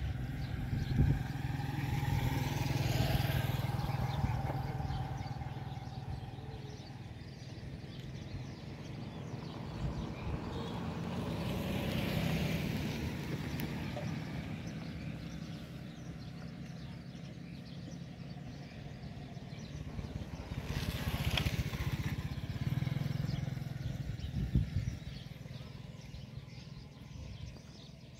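Road vehicles passing by one after another: three pass-bys, each swelling and fading over several seconds, over a steady low hum.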